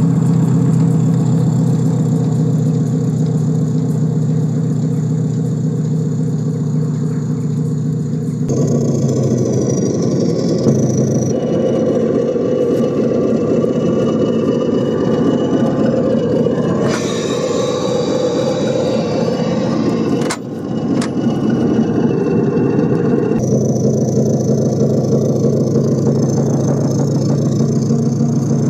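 Engine of a miniature BR Class 20 diesel locomotive running with a steady note. From about eight seconds in it turns rougher and noisier, and it settles back to the steady note near the end.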